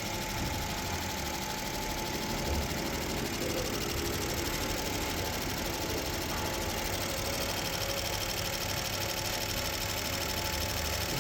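Fuel injector test bench running, firing a set of four GDI fuel injectors with a steady mechanical buzz. This is the flow test after ultrasonic cleaning, and all four injectors test level.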